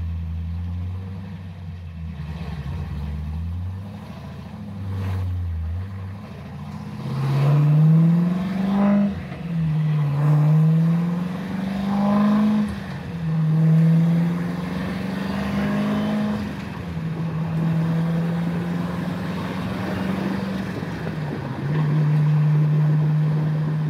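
Turbocharged LS V8 in a Mazda RX-7 FC running low and steady, then pulling through the gears of a T56 Magnum six-speed manual: the engine note climbs and drops back at each upshift, three times, before settling into a steady cruise. Heard from underneath the car, by the driveshaft.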